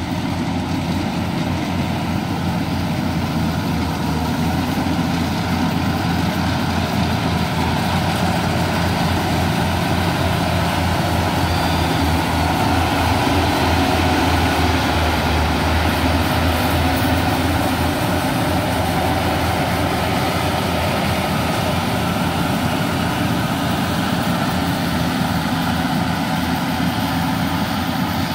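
Yanmar 850 rice combine harvester running steadily under load as it cuts and threshes rice, the engine and machinery a little louder about halfway through as it passes close by.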